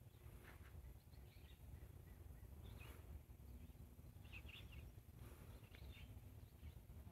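Faint bird chirps, short high calls every second or so, over a low steady rumble.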